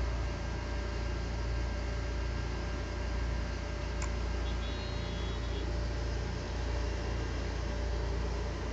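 A single faint click from a Sony Vaio E-series laptop about four seconds in, over a steady low hum and hiss. It is the repeating click the laptop makes whenever Internet Explorer or Firefox is open, but not with Chrome.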